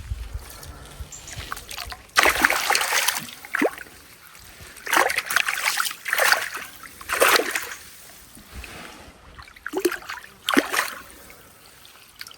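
A freshly landed leather carp splashing in the water in about six short bursts, a second or two apart.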